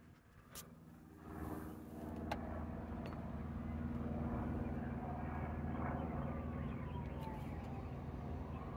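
6.6 L Duramax LMM turbo-diesel V8 idling with a steady low hum, heard from under the truck, growing louder about a second and a half in as the sound comes closer to the engine bay.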